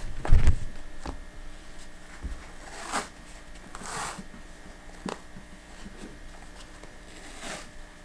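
Sticky bandage wrap being pulled off its roll and worked around a splinted leg in several short pulls, with a heavy bump about half a second in.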